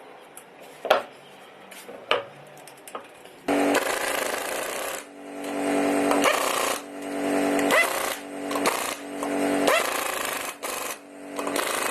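A few light metal clinks, then an impact wrench running in repeated bursts of a second or two, spinning the wheel's lug nuts on as the road wheel is refitted.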